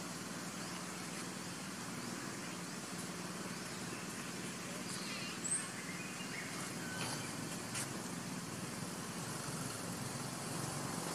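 Steady outdoor background noise with a constant low hum. A few short high chirps and squeaks come near the middle, one sharp and brief.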